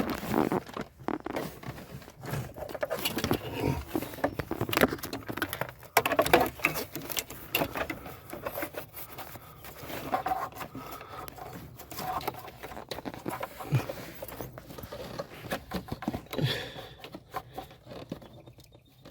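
Irregular scraping, rustling and light clicking of hands and parts being handled under a truck's dashboard, around the accelerator pedal.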